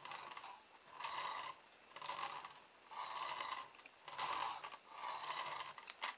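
Plastic toy car with a rubber-band-driven back axle rolled back and forth under a hand, its wheels and axle whirring briefly with each push: six short strokes about a second apart. Pushing it back winds the rubber band around the axle.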